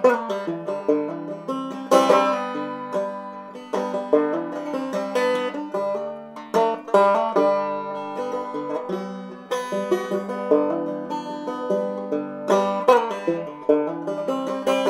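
Background music: a plucked-string tune of quick, sharply struck notes.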